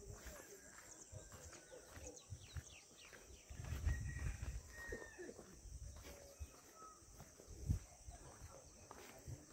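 Walking outdoors: soft footsteps on a concrete path, with a steady high drone of insects and a few short bird chirps.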